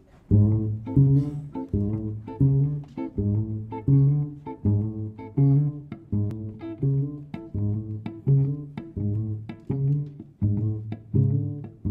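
Upright double bass and archtop electric guitar playing jazz together in a repeating figure of plucked low notes, about one every two-thirds of a second. The music starts abruptly just after the beginning.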